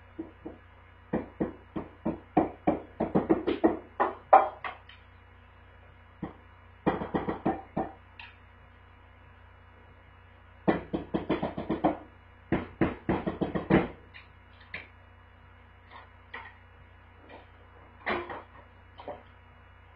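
Drums struck with Firestix light-up drumsticks in quick runs of strokes lasting a second to a few seconds, with pauses between. The runs thin out to a few scattered single hits in the second half. A steady low hum runs underneath.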